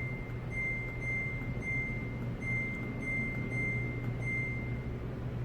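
Control-panel beeps of a Samsung top-load washing machine: short high beeps, about one every half-second, as a button is pressed again and again to step through the settings. They stop about five seconds in. A low steady hum runs underneath.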